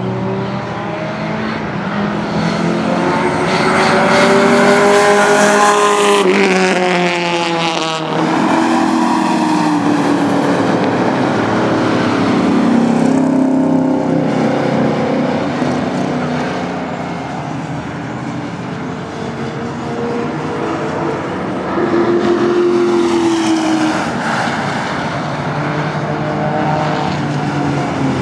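Cars lapping a road-course race track, engines running hard, their pitch rising and falling as one car after another passes, with a sudden change about eight seconds in.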